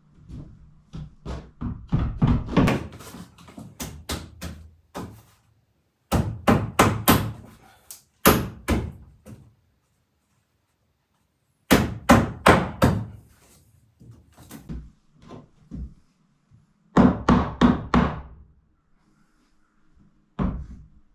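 Hammer blows on wood, in quick runs of several strikes with pauses between, as work goes on at the cabin's wooden door frame.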